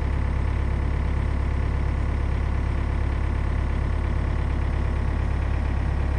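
Komatsu PC40 mini excavator's diesel engine running steadily with a low, even hum.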